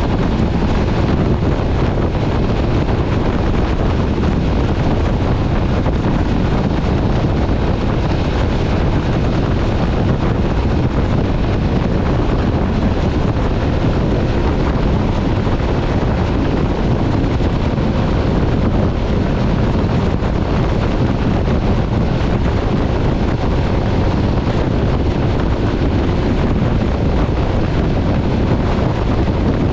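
Steady wind rushing over the microphone of an MV Agusta Stradale 800 motorcycle at riding speed, with the bike's running engine mixed into it.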